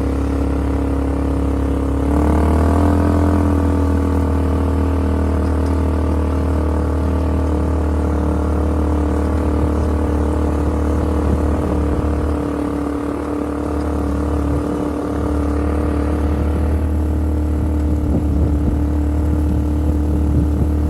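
Small off-road vehicle engine running steadily during a ride, picking up revs about two seconds in and then holding a steady pace.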